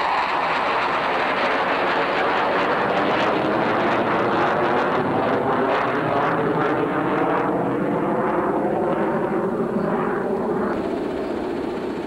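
A steady engine drone with a slowly drifting pitch, easing off a little near the end.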